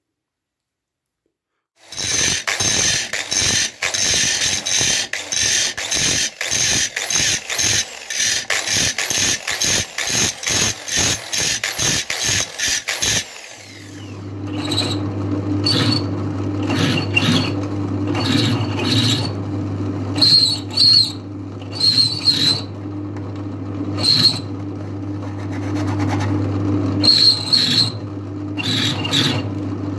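Steel being hand-filed in quick, even strokes, about two a second, for some eleven seconds. Then a bench drill press motor hums steadily while the bit drills holes through a steel strip, squealing off and on as it cuts.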